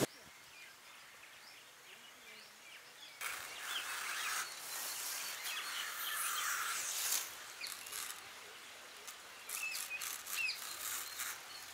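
Birds chirping in quiet outdoor air. About three seconds in come louder, uneven rustling and scraping as banana leaves are handled and a thin strip of fibre is peeled from a banana stem.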